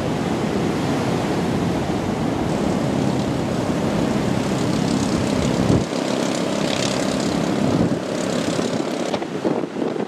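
Strong storm wind buffeting the microphone: a steady low rumble over a hiss of surf. The low rumble falls away about six seconds in.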